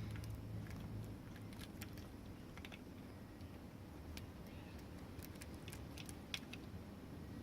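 Faint, irregular small metallic clicks and ticks of a lock pick and tension tool working the pins in the keyway of a small Tri Circle padlock.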